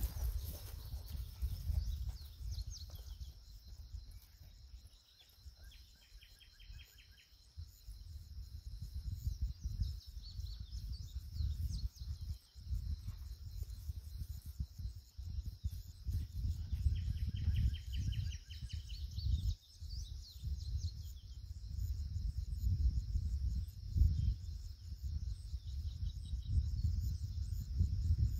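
Steady high drone of insects, with birds chirping and trilling now and then, over a low, uneven rumble of wind on the microphone.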